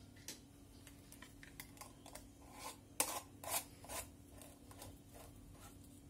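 Metal screw-top lid being set on a glass jar and twisted shut by hand: a run of faint clicks and scrapes, the loudest a cluster about three to four seconds in.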